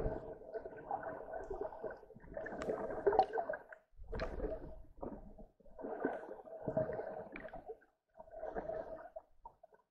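Muffled gurgling and sloshing water heard through a camera held underwater, in uneven bursts of a second or two with short quiet gaps between them.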